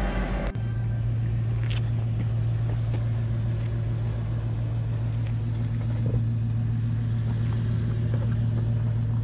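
Music cuts off about half a second in, then a Jeep Wrangler Rubicon's engine runs with a steady low drone as the Jeep crawls slowly over a rocky trail. A few faint clicks sound over it.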